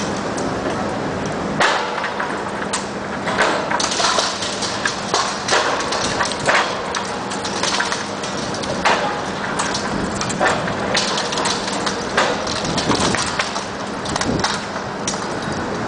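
John Deere 450 diesel engine running steadily while bricks break and fall, with many irregular sharp cracks and clattering knocks over the engine hum.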